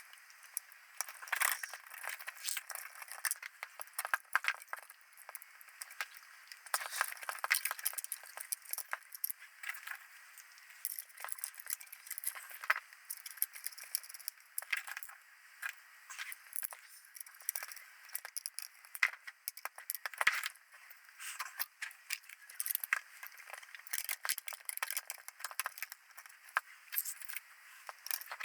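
Small metal parts and screws clicking, clinking and rattling as a Ferranti HUD video camera is reassembled by hand. The clicks come irregularly, several a second, without a break.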